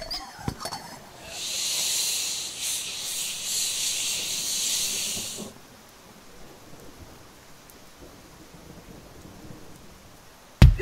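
A steady, dry high-pitched hiss lasting about four seconds, a sound effect laid over butter and flour being worked into a crumbly mix. It cuts off, and a single sharp thump comes near the end.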